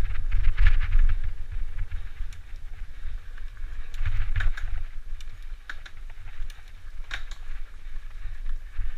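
Mountain bike riding fast over a dirt singletrack strewn with dry leaves: a steady low rumble from the ride, with scattered clicks and rattles from the tyres and bike over the rough ground.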